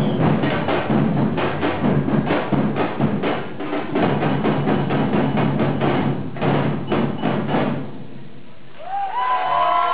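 Percussion music with fast, dense drum strokes, which breaks off about eight seconds in. Near the end, several rising and falling tones begin.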